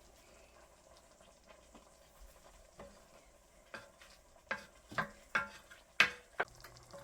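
Spoon stirring in a cooking pot: a low, even background at first, then a run of sharp clinks and scrapes against the pot over the last few seconds, the loudest one near the end.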